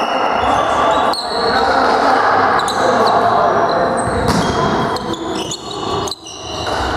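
Indoor volleyball rally in a reverberant gym: the ball struck several times with sharp slaps and thuds, and sneakers squeaking on the court floor, over a steady background of players' voices.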